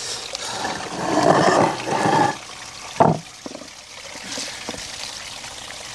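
Dog splashing about in a rock fountain pool over the steady trickle of the fountain, loudest for about two seconds near the start, with a single sharp hit about three seconds in.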